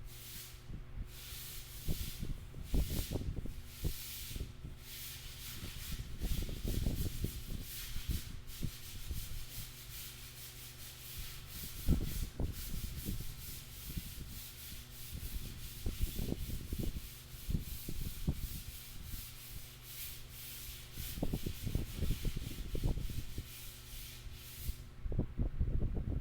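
Irregular rubbing and scratching strokes that come and go, with soft thuds, over a steady low electrical hum; the scratching stops near the end.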